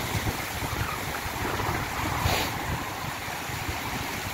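Shallow sea surf washing and fizzing, with wind buffeting the microphone; a brief louder wash about two seconds in.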